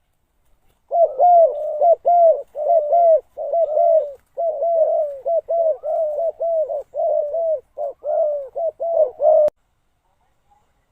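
Spotted dove cooing: a long run of quick, arched coos repeated one after another, used as a decoy call to lure wild doves. The calling starts about a second in and stops abruptly with a click near the end.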